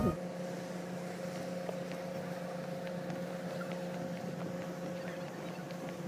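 Boat engine running at a steady drone, a constant low hum that holds one pitch, with a few faint ticks over it.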